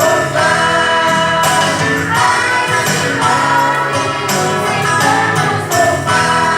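A choir singing a Christmas song with instrumental accompaniment.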